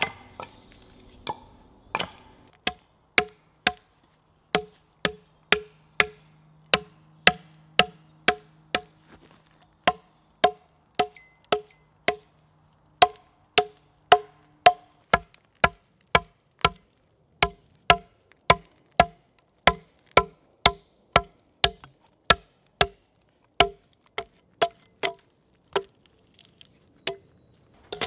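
Hatchet chopping a notch into a pine log, one steady blow after another, about one and a half a second. Each blow is a sharp knock with a short, hollow wooden ring.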